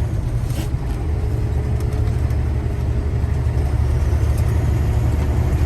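Semi truck's diesel engine and road noise heard from inside the cab while driving: a steady low drone.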